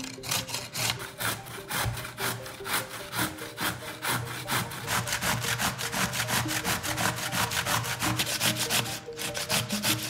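Zucchini being grated on a stainless steel box grater: quick rhythmic rasping strokes, about four or five a second, with a short break about nine seconds in.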